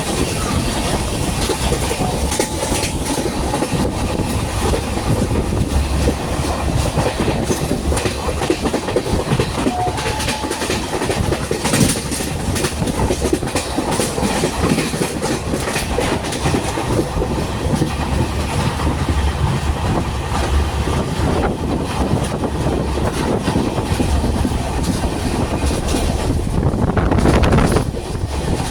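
Express train running at speed, with a steady loud rumble and the wheels clattering over the rail joints. The noise swells briefly near the end, then drops off suddenly.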